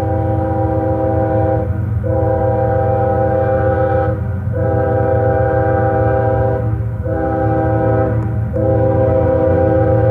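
Nathan K5HL five-chime locomotive air horn sounding a loud chord in a run of long blasts, cut by four short breaks, over the steady low rumble of the locomotive.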